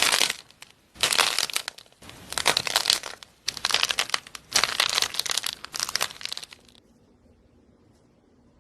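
Slime being squeezed and pressed in the hands, crackling and popping in a series of crinkly bursts about once a second. The bursts stop about seven seconds in.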